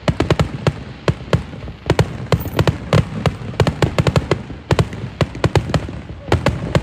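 Fireworks display grand finale: a rapid, irregular barrage of loud aerial shell bangs and cracks, several a second.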